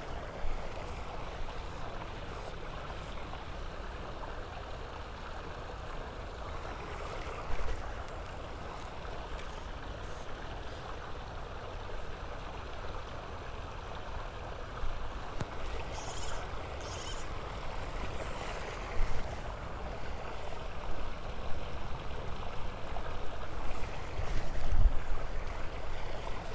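Steady rush of flowing creek water with some wind rumble, and a few brief high clicks about two-thirds of the way through.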